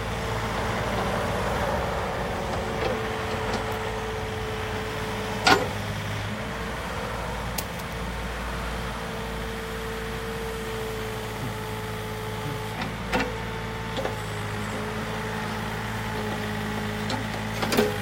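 Kobelco SK013 mini excavator's three-cylinder diesel engine running steadily, with a steady higher whine over it. A few sharp knocks stand out, one about five and a half seconds in and others later.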